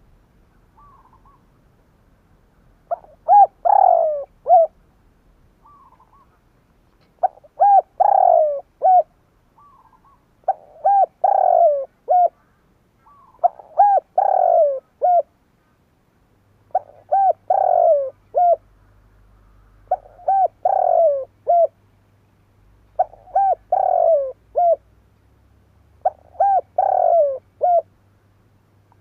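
Spotted dove (Streptopelia chinensis) singing: a cooing phrase of short notes, a longer falling coo and a short closing note, repeated about every three seconds, beginning about three seconds in.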